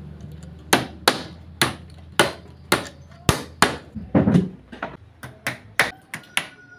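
Hammer nailing pine slats together to assemble a wooden fruit crate: a run of sharp, irregular blows, about ten of them, a second or less apart, with a low steady hum beneath that fades out near the end.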